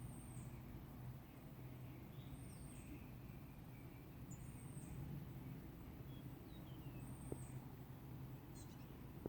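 Wild songbirds calling: one bird repeats a thin, high note about every two seconds, with fainter, lower chirps from other birds in between. A steady low hum runs underneath.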